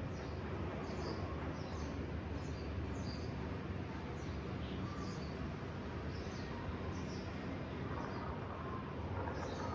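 Small birds chirping, short high calls repeating every second or so, over a steady low background rumble.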